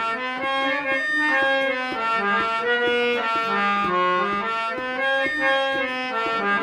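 Instrumental interlude: a harmonium plays the melody in held, reedy notes, over light percussion strikes.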